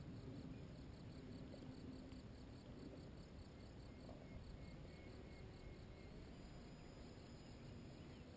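Near silence: the faint, steady drone of a paramotor engine high overhead, with crickets chirping in the grass.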